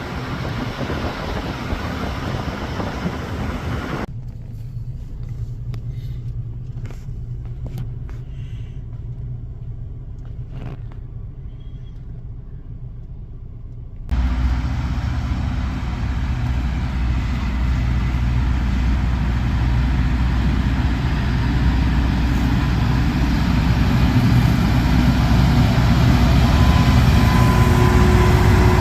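LORAM rail grinder train at work: its steady grinding roar and heavy engine rumble. About four seconds in the sound drops abruptly to a low rumble alone, then at about fourteen seconds the full grinding noise comes back suddenly and builds louder toward the end.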